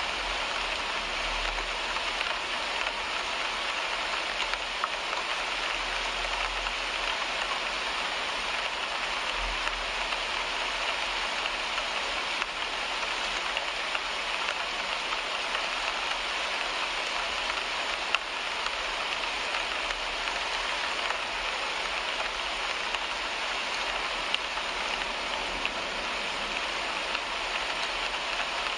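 Steady rain falling on a car windshield, with now and then a sharper tap of a single drop.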